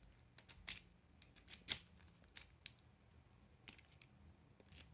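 Metal lock pick and tension tool working in a brass pin-tumbler lock cylinder as it is picked: a scatter of faint, short clicks and scrapes as the pick lifts and sets the pins.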